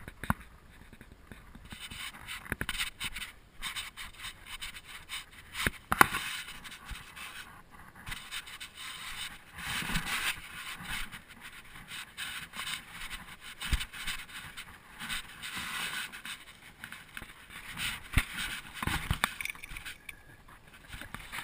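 Scuffs and scrapes of a hiker's shoes and hands on sandstone, with scattered sharp knocks as the action camera is jostled during the climb; the loudest knock comes about six seconds in.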